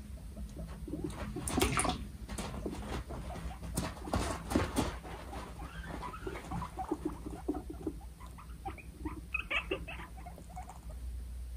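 Two guinea pigs squabbling for dominance: a string of short squeaks and calls, with bursts of sharp teeth-chattering clicks about two and four seconds in, and a run of higher squeals near the end.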